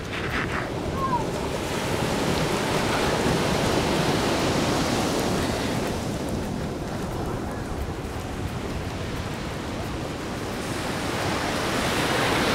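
Ocean surf washing onto a beach: a steady rush of waves that swells a few seconds in and again near the end.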